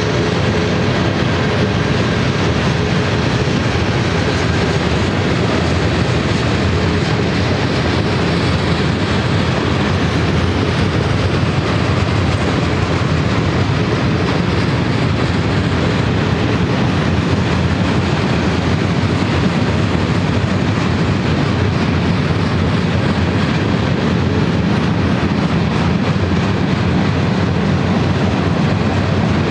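Freight cars of a long manifest freight train rolling past at speed: a steady rumble of steel wheels on the rails.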